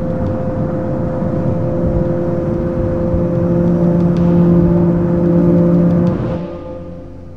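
Engine and road noise inside a moving car, steady with a few level droning tones, fading out about six seconds in to a faint low hum.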